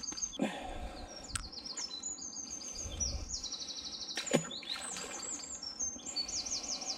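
Songbirds singing, with fast runs of high, quickly repeated chirping notes throughout. A couple of sharp knocks cut in, the loudest about four and a half seconds in.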